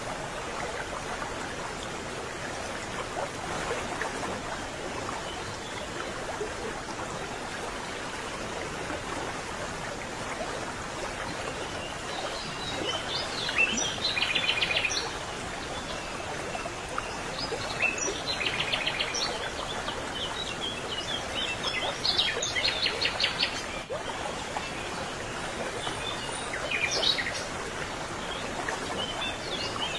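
Steady rushing noise of a flowing stream, with small birds chirping and trilling several times in the second half.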